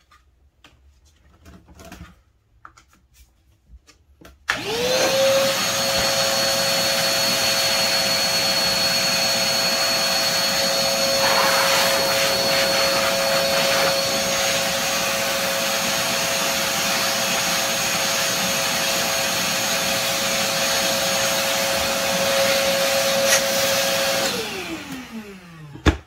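Koblenz WD-2.5 L 2.5-gallon wet/dry shop vacuum run as a blower. After a few faint handling clicks, its motor is switched on and spins up in about a second to a steady whine over a rush of air. It runs for about twenty seconds, then is switched off and winds down with a falling pitch.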